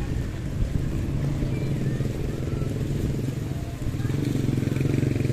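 A motor vehicle's engine running steadily close by in street traffic, getting louder about a second in and again near the end.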